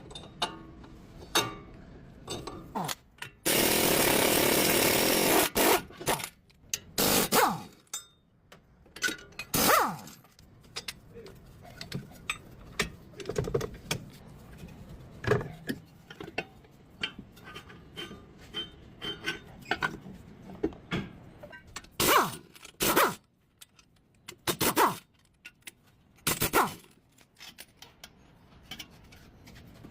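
Workshop tool sounds from work on a front wheel bearing. A power tool runs steadily for about two seconds, a few seconds in, among scattered knocks and taps of hand tools.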